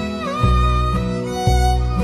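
Background music: an instrumental passage of a song, a melody line over low bass notes that change about every half second.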